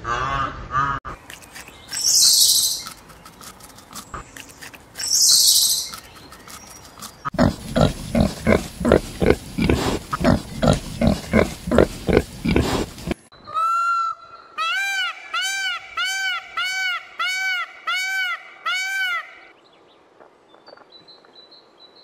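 A run of different animal sounds. First come two short, high hissy bursts. Then a wild pig grunts rapidly for about six seconds, followed by a repeated pitched call, about two a second, that stops about two seconds before the end.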